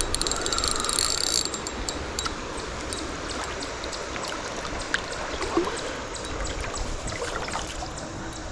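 Fishing reel clicking rapidly for about a second and a half, then in scattered ticks, while a hooked trout is being played, over the steady rush of a river current.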